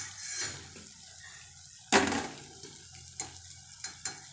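Metal spatula scraping and clinking against an iron kadhai while sliced onions and tomatoes fry in mustard oil, over a low sizzle. Several short scrapes, the loudest about two seconds in.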